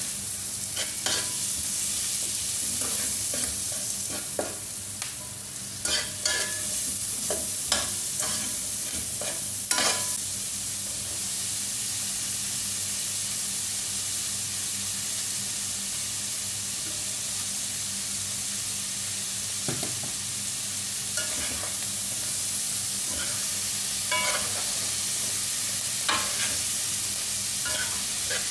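Vegetables sizzling in hot oil in a nonstick wok, with a utensil scraping and clacking against the pan as they are stirred. The stirring clatter comes in bursts through the first ten seconds and again in the last several, with steady sizzling in between.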